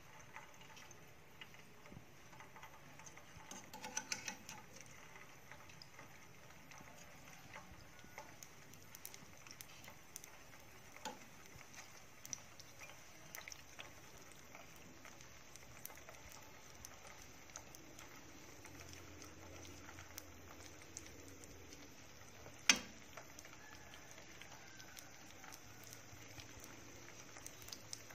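Glutinous rice balls frying in oil in a ceramic-coated pan: a faint sizzle with many small crackles and pops. A few light clicks of metal tongs against the pan, one sharper than the rest late on.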